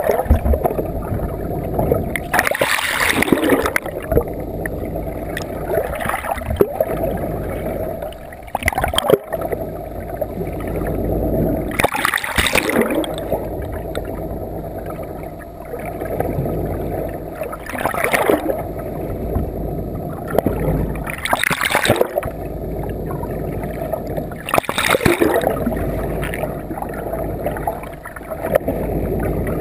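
Water rushing and gurgling past a camera held underwater at the bow of a moving boat, heard muffled through the housing, over a steady low boat engine drone. Loud surges of splashing come several seconds apart as the water churns over the housing.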